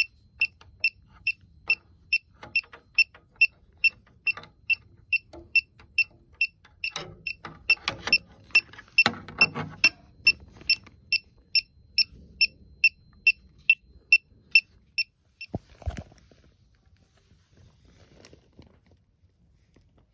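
Elitech WJL-6000 refrigerant leak detector beeping steadily at about two short high beeps a second, its alarm for sensing refrigerant at a known leak point. Handling noise comes through the middle, and the beeping stops about fifteen seconds in, just after a sharp thump.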